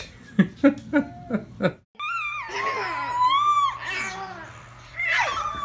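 Baby laughing in about five short bursts. Then, after a brief break, a baby's high, wavering squeals and babbling.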